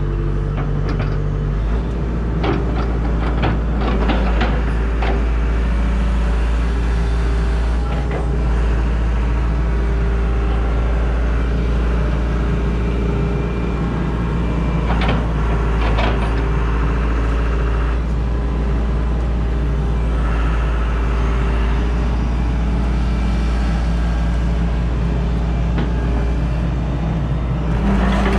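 Hitachi excavator's diesel engine running steadily while the boom, bucket and hydraulic thumb are worked, with scattered clanks and clicks: a cluster in the first five seconds and another about fifteen seconds in.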